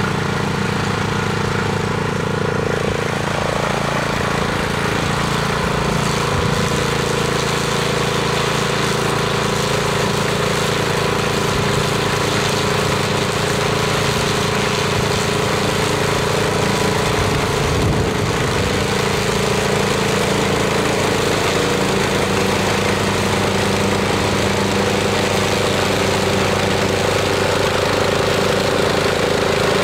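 Briggs & Stratton 344 cc industrial petrol engine of a PANTER FD-344-HG walk-behind high-grass mower, running steadily at working speed while its mulching blade cuts tall grass.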